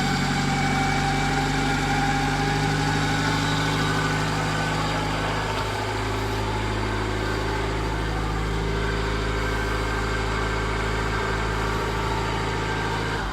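1994 Honda City's four-cylinder petrol engine idling steadily just after a remote start, its idle easing slightly lower about five seconds in.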